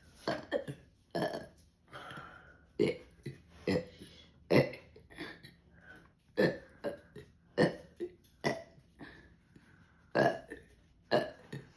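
A person burping the alphabet, belching out the letters one after another as a run of short burps, about two a second.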